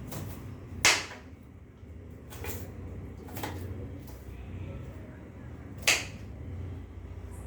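Kitchen knife cutting onions on a chopping board: a few separate sharp knocks of the blade on the board, the loudest about a second in and again near six seconds, with softer cuts between.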